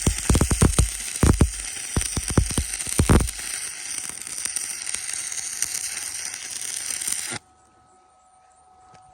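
Arc welding the first pass of weld around a hydraulic cylinder eye: a crackling hiss with many sharp pops for about three seconds, then a smoother steady hiss that cuts off suddenly about seven seconds in as the arc is broken.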